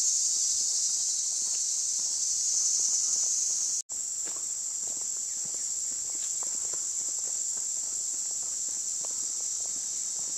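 Steady, high-pitched chorus of insects in summer woods, with faint footsteps on a dirt trail beneath it. The sound breaks off for an instant about four seconds in.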